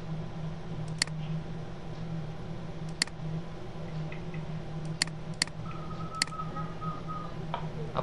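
Computer mouse clicking five times, sharp single clicks spread over several seconds, over a steady low electrical hum.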